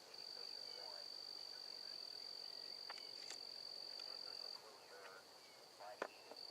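Faint outdoor evening ambience: a steady, high-pitched insect trill that breaks off about four and a half seconds in and starts again near the end, with faint chirps underneath. A few light ticks come around the middle and a single sharp click about six seconds in.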